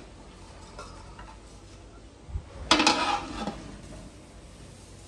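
A metal lid set onto a cooking pot: a low bump a little past two seconds in, then a sharp metal-on-metal clatter that rings briefly.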